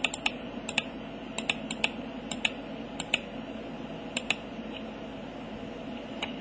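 Typing on a computer keyboard: a scatter of irregular keystrokes for about four seconds, then a pause and one more keystroke near the end, over a steady low hum.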